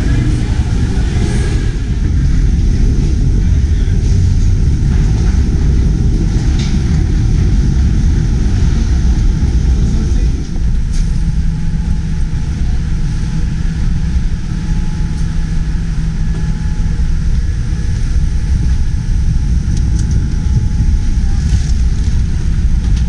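Steady low rumble of a running vehicle, with a steady low hum joining about halfway through.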